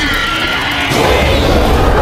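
Loud music, growing fuller about a second in.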